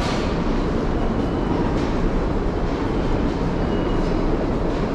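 New York City subway train running with a steady, loud rumble, and a faint, brief high-pitched squeal twice.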